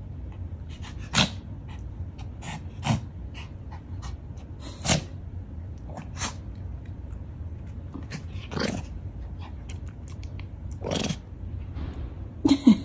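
Pomeranian and golden retriever puppies play-fighting, giving short, sharp puppy barks, about seven of them a second or two apart, with two quick ones near the end, over a low steady hum.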